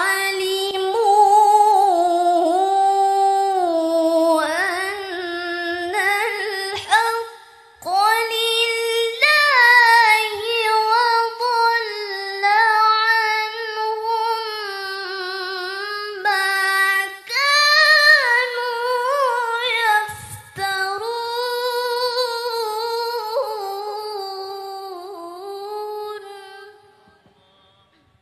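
A woman's voice reciting the Quran in the melodic tilawah style, amplified through a microphone. Long held phrases waver and turn in pitch, broken by a few short breath pauses, and the last phrase trails off near the end.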